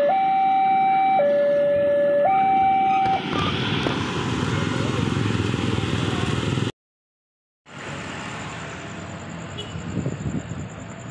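Electronic two-tone warning alarm of a railway level crossing, alternating between a higher and a lower pitch about once a second, over the rumble of a passing train and road traffic; the alarm stops about three seconds in as the train clears. After a brief cut, quieter night-time background with a high, steady trill.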